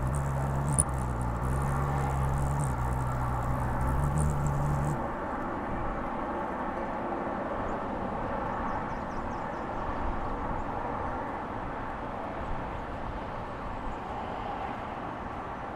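Rufous hummingbird in flight: a low steady wing hum with high, thin chirping trills that the wings make. About five seconds in, the high chirps drop out and a duller, lower sound remains, which fits the same wing sounds played back at quarter speed.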